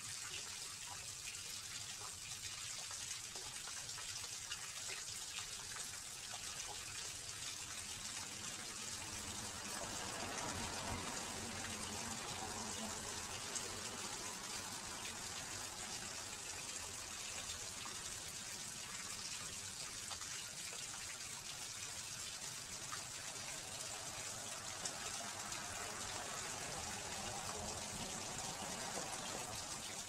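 Small backyard fish-pond waterfall: water spilling steadily over a stone ledge and splashing into the pond, growing a little louder and fuller about ten seconds in.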